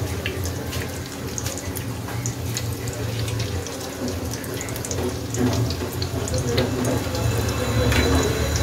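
Oil sizzling and crackling around vegetable lollipops deep-frying in a kadai, a steady bubbling hiss with many small pops throughout.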